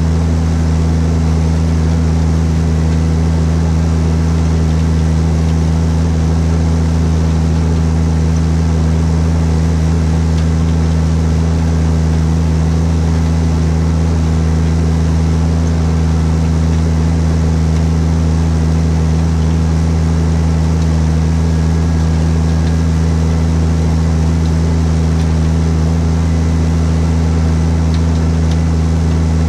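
Fendt 820 Vario tractor's Deutz six-cylinder diesel running at a steady, unchanging speed, with a constant low drone.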